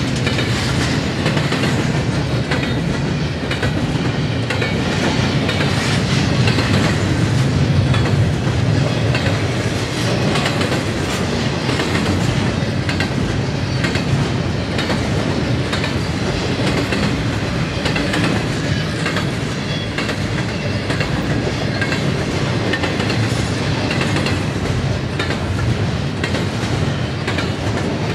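Double-stack intermodal container train rolling past close by: a steady rumble of steel wheels on the rails with a constant patter of clicks as the well cars' wheel trucks pass.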